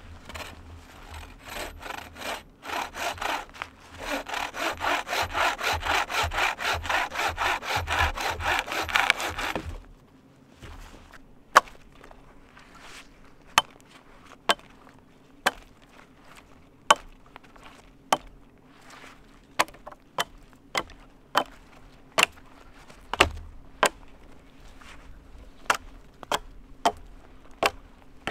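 Wooden-framed bucksaw cutting through a branch in fast, even strokes, stopping suddenly about ten seconds in. After that, a string of sharp single knocks, roughly one a second, as a hatchet chops at the branch.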